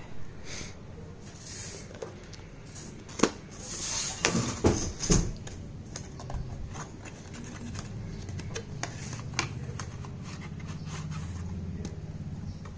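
Smartwatch retail box and its cardboard packaging being opened and handled: scraping and rustling with scattered sharp clicks and knocks, the loudest about three to five seconds in.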